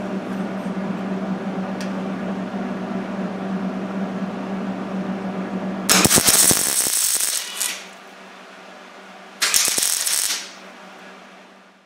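MIG welder tack-welding a steel bracket to car body sheet metal: two bursts of loud crackling arc sizzle, the first about six seconds in lasting nearly two seconds, the second shorter about a second and a half later. Before them a steady hum.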